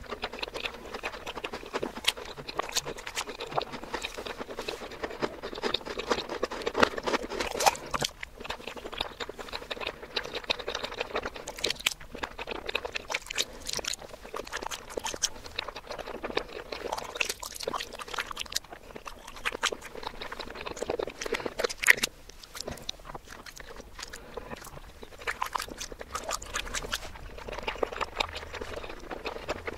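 Close-miked wet eating sounds of soft chocolate pudding and whipped cream: mouth smacks, squelching chews and lip clicks, played backwards so each sound swells in and stops abruptly.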